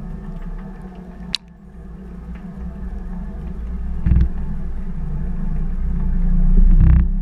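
Washing machine drum turning, heard from inside the drum through a sealed camera housing: a low motor hum that grows louder, a sharp click about a second in, and two dull heavy thumps, about four and seven seconds in.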